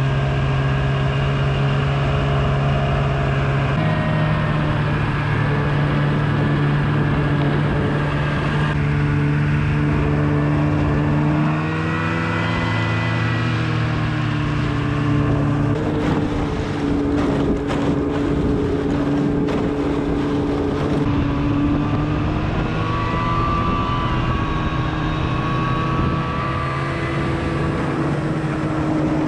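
Snowmobile engine running steadily while riding, its pitch shifting up and down a few times with the throttle, with a short patch of rattling knocks around the middle.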